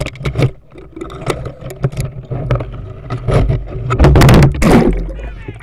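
Branches and twigs scraping, snapping and knocking against the camera as it is pushed through overhanging brush from a kayak: a string of sharp knocks over a low rumble, with a louder stretch of scraping and rustling about three to five seconds in.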